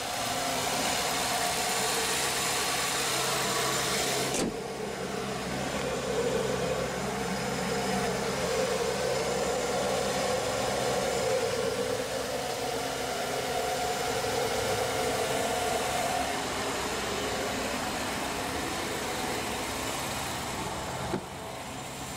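Ford 6.7-litre PowerStroke turbo-diesel V8 idling steadily, a continuous low hum that drops slightly about four seconds in.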